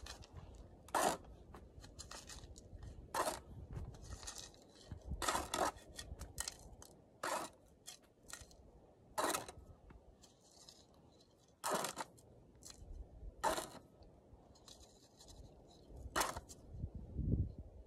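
A plastic scoop scraping and digging into gravelly soil in short, sharp strokes every second or two, with soft rustling of loose dirt in between, as a gold nugget is worked out of the ground.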